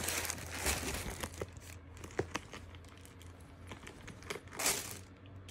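Paper wrapping being unwrapped by hand, crinkling and rustling in irregular bursts with small clicks. It is busier in the first second or so, then there is a louder rustle near the end.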